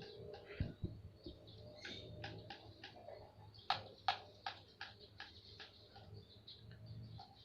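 Small birds chirping in short, quick calls, with a few sharper clicks among them around the middle.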